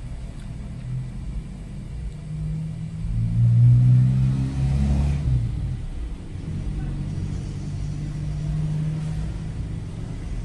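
Low rumble of a motor vehicle engine. It swells to its loudest about four seconds in, then settles back to a steady drone.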